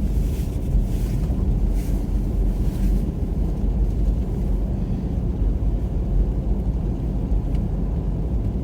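Steady low rumble of a car driving slowly on a snow-covered road, heard from inside the cabin: engine and tyre noise.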